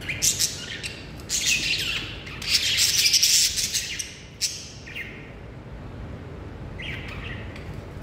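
Caged Indian ringneck parakeet calling: a run of loud, harsh screeching calls over the first four seconds or so, then a short call about five seconds in and one more near seven seconds.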